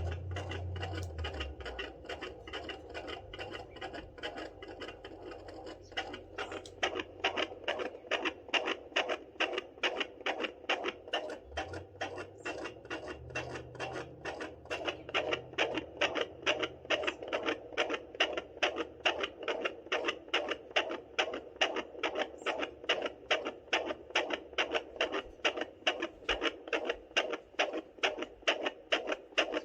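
Fetal heartbeat through a handheld fetal Doppler: rapid, regular whooshing pulses, a little over two a second, that grow clearer and louder about six seconds in.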